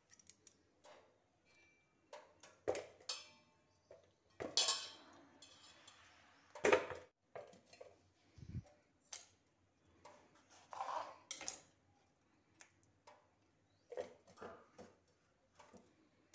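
Kitchen handling sounds: a stainless steel bowl and a kitchen knife knocking and clinking irregularly as tomatoes are washed and halved on a wooden board, with two longer noisy spells about five and eleven seconds in.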